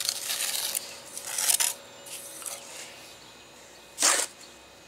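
Masonry pointing tool scraping against brick and mortar as it is worked into a step's mortar joint: a run of gritty scrapes over the first two seconds, then a few fainter ones. A brief louder noise about four seconds in.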